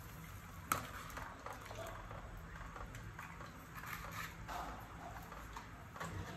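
Chicken tom yum broth bubbling at a boil in a stainless steel pot, with irregular small pops. A metal ladle clinks sharply against the pot about a second in, and there is a smaller knock near the end.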